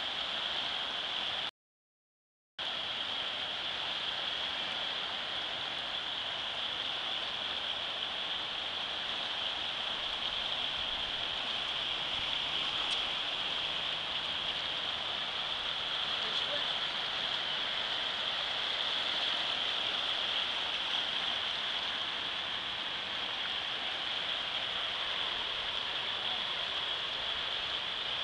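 Fast-flowing floodwater of a swollen river rushing past, a steady hiss of churning water. The sound drops out completely for about a second near the start.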